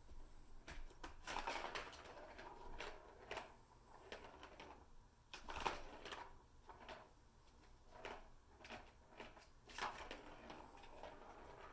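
Plastic balls knocking and rattling in the track of a Catit Senses Super Roller Circuit as kittens bat at them, in irregular taps and clicks, the sharpest about halfway through and near the end.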